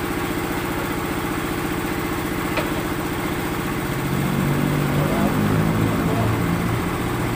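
Small engine of concrete-block-making machinery running steadily with a fast, even beat. About four seconds in, a louder low hum joins it, and there is a single sharp knock a little before that.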